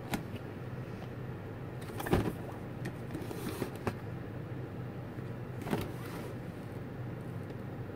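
Cardboard box handled and turned over in the hands: a few short knocks and scuffs, the loudest about two seconds in, over a steady low hum.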